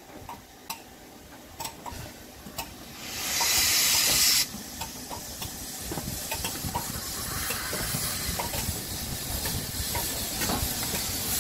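Royal Scot class steam locomotive 46100 moving slowly, with a few sharp clicks at first. About three seconds in comes a loud hiss of escaping steam that cuts off suddenly a second and a half later, followed by a steady hiss of steam that slowly grows louder.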